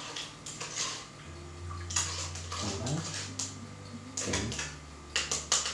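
Teaspoon stirring lemon juice and sugar in a small glass, clinking and scraping irregularly against the glass as the sugar dissolves. A low steady hum comes in about a second in.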